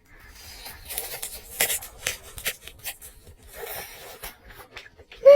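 Close-up crinkling, crackling and clicking of food being handled and eaten, in two stretches. Near the end a short squeal falls in pitch.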